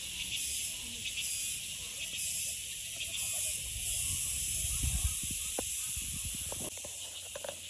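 Insects chirring steadily in the forest, a high pulsing hiss, with a few low thumps about five to six seconds in.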